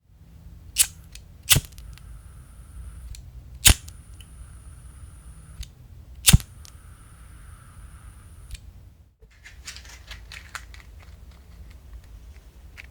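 A gas lighter clicks and lights three times, each click followed by about two seconds of hissing gas flame with a thin high whistle in it. In the second half comes a run of small rapid clicks and scratches.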